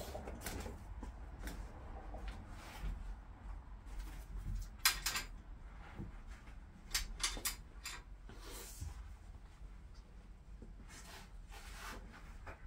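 Scattered light scrapes, rustles and knocks of hands handling a panoramic glass roof panel set on a car's roof. The loudest scrape comes about five seconds in, with more around seven seconds and again near the end.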